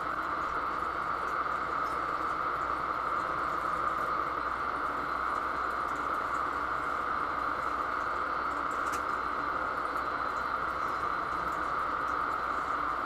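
Steady background hiss with a low hum underneath, even throughout, like running machinery or ventilation, with one faint click about nine seconds in as the pump housing is handled.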